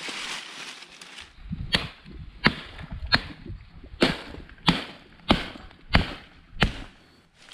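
Hatchet chopping a fresh-cut green sapling near its fork: a brief rustle, then about eight sharp blows, one every two-thirds of a second or so.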